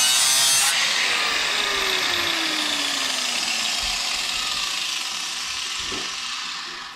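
Milwaukee corded angle grinder's sanding disc grinding the steel edge of a shovel blade, cutting off under a second in as the disc is lifted from the steel. The grinder then keeps running off the work with a steady hiss and a falling whine that slowly fades.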